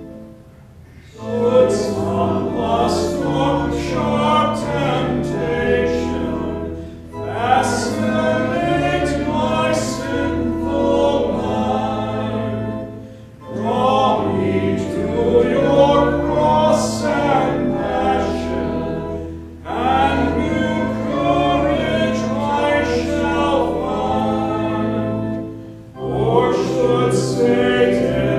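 Congregation singing a hymn with organ accompaniment. The organ introduction ends at the start, and after about a second the singing comes in, in phrases of about six seconds with short breaks between them.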